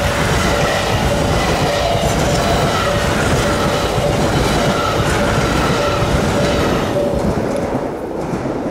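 Shinkansen bullet train passing at speed: a loud, steady rush of wheel and air noise that eases off near the end as the train goes by.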